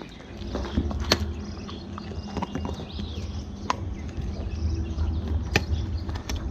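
A dog gnawing a large stewed bone, its teeth cracking and clicking on the bone in scattered sharp knocks, the strongest about a second in, near the middle and near the end.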